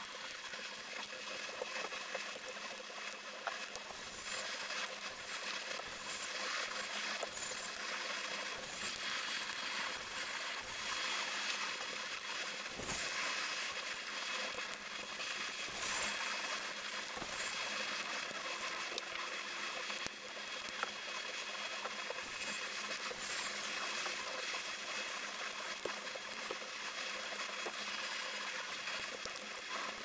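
Crinkly rustling and crackling of a thin black plastic insulating sheet being peeled back and handled inside an opened laptop, with scattered small clicks and ticks of fingers and tools on the parts.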